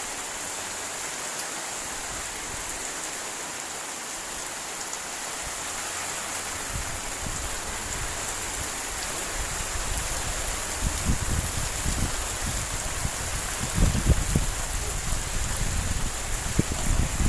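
Steady rain falling, an even hiss throughout. From about six seconds in, irregular low rumbles join it, growing louder toward the end.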